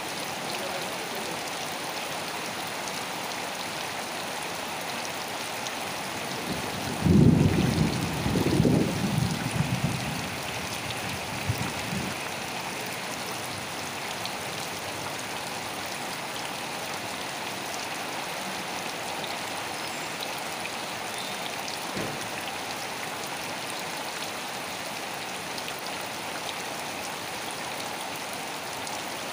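Steady rain falling as an even hiss. About seven seconds in, a loud low rumble swells and dies away by about twelve seconds. A single soft knock comes near the end.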